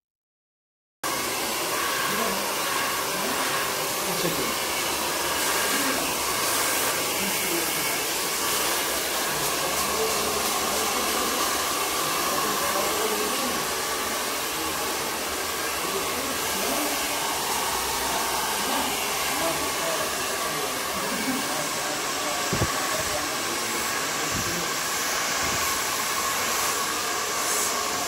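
Handheld hair dryer blowing air steadily while hair is blow-dried with a round brush, a constant rush of air with a faint whine, cutting in abruptly about a second in.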